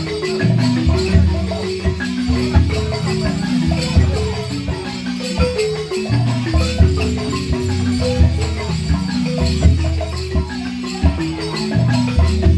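Several gourd-resonated balafons playing together, a steady, busy run of short wooden mallet notes repeating in an interlocking pattern.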